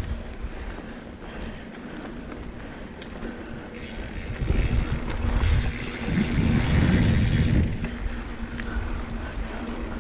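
Wind buffeting the microphone as a steady low rumble, with a stronger gust of rushing hiss from about four to eight seconds in.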